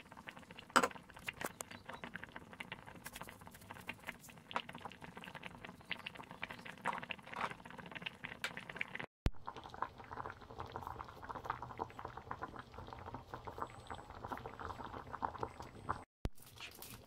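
Chicken pieces simmering in liquid in an uncovered pan, bubbling with many small pops and crackles. There is a sharp knock about a second in, and the sound drops out briefly twice.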